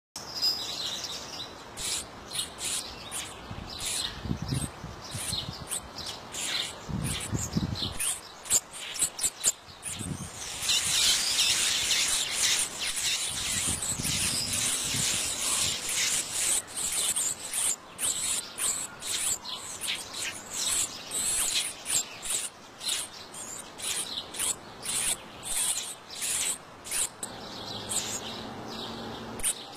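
Sanhaço (Thraupis tanager) nestlings begging with rapid high-pitched chirps. From about ten seconds in they rise to a dense, continuous begging chorus for several seconds, the loudest part, then fall back to scattered chirps. A few low bumps are heard along the way.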